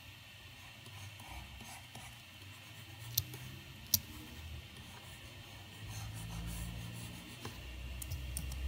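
Faint room noise with two sharp computer mouse clicks about three seconds in, less than a second apart, and a low rumble in the second half.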